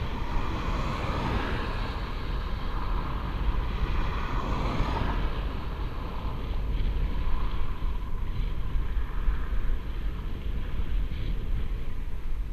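Wind rushing over the microphone of a camera on a moving bicycle: a steady low rumble with no distinct events.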